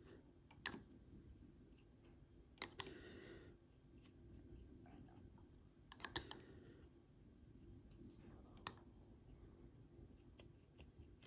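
Near silence broken by a handful of faint clicks and brief soft scratching: a fine paintbrush working wash onto a tiny model held on a small paint tin, and fingers shifting on the tin.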